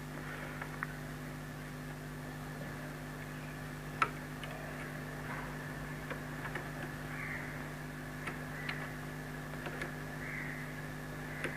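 Small screwdriver tightening a terminal screw on an extension board's wiring, giving faint clicks and scrapes over a steady low hum. One sharper click comes about four seconds in.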